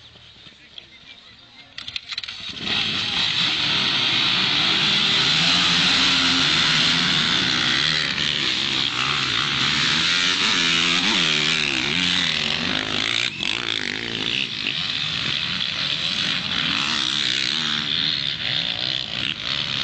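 A field of motocross motorcycles starting up about two seconds in, then many engines revving hard together as the pack pulls away, their pitches rising and falling over one another.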